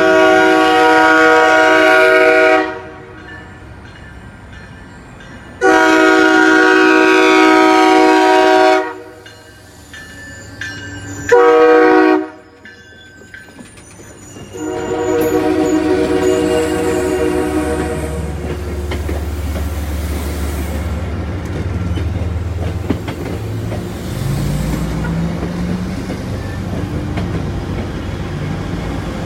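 MBTA train horn sounding four loud chord blasts, long, long, short, long: the grade crossing signal. The train then rolls past with a steady rumble.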